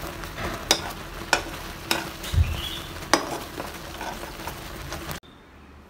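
Metal spoon stirring simmering oat porridge in a steel pan: a steady bubbling hiss, with several sharp clinks of the spoon against the pan. The sound cuts off suddenly about five seconds in.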